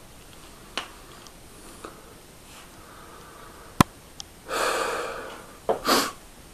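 Handling noise from a handheld camcorder being moved: a few sharp clicks, then a loud rush of noise lasting under a second about halfway through, and another short one near the end.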